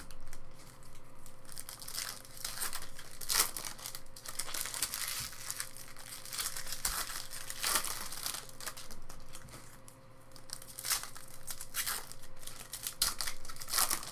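Foil wrapper of a Topps Chrome trading-card pack crinkling and tearing as it is ripped open by hand, in irregular crackles all the way through.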